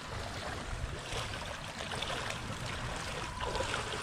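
Water splashing and sloshing as a person wades through shallow seawater, with a wet cast net dragging and dripping at the surface.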